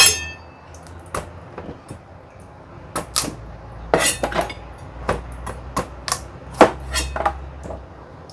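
Large kitchen knife cutting a pumpkin on a cutting board: a sharp metallic clink at the start, then irregular knocks as the blade chops through and strikes the board.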